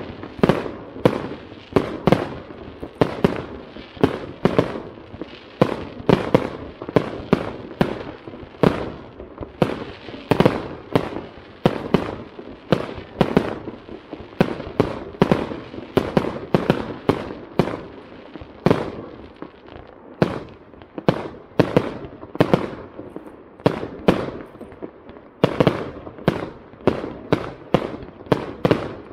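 Aerial fireworks going off in a rapid, steady series of bangs, about two a second, with the noise of each burst hanging on between them.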